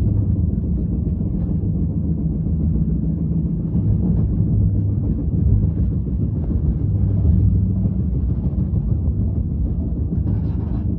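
Steady low mechanical rumble with a deep hum.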